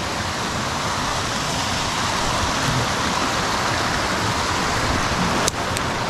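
Steady rushing of water from a small cascade on a mountain stream. A single sharp click sounds about five and a half seconds in.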